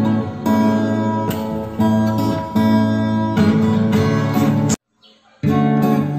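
Background music played on acoustic guitar. It cuts out for under a second about five seconds in, then carries on.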